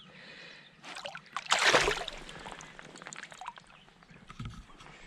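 Shallow river water splashing as a caught asp is let go and swims off, with one loud splash about a second and a half in, followed by smaller splashes.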